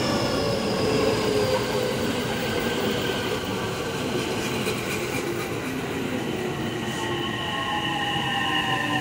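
JR West electric suburban train running past the platform: wheels rumbling on the rails under a steady electric motor whine that falls slowly in pitch as the train slows.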